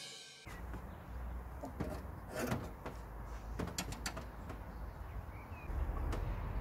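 A short music sting ends half a second in, then come scattered light knocks and clicks as sausages on sticks are hung on the metal rails inside a smokehouse cabinet, over a steady low outdoor rumble. A bird chirps briefly once.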